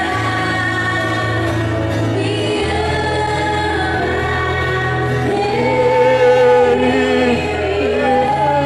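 Christian worship song sung by female voices, with held, gliding sung notes over steady sustained chords of instrumental backing.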